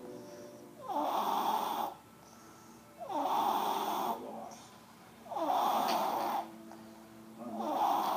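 A person snoring: four loud snores, each about a second long, coming roughly every two and a half seconds, with quieter stretches between.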